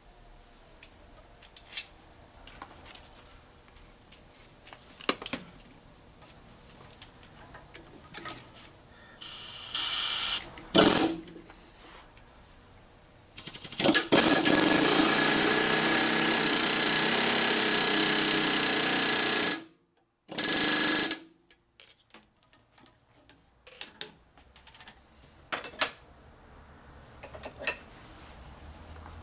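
Serdi 100 machine's spindle spot-facing the top of a freshly installed intake valve guide in a Mopar 318 cylinder head, trimming the guide to length. There are two short bursts about ten seconds in, then one loud steady run of about six seconds that cuts off abruptly, and one more short burst just after, with light tool clicks before and after.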